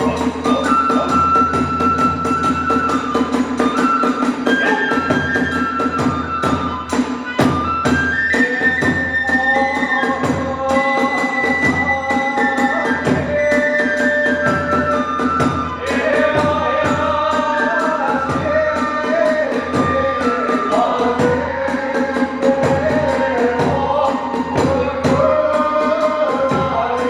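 Hiroshima kagura accompaniment: a bamboo flute playing a winding melody over steady drum beats.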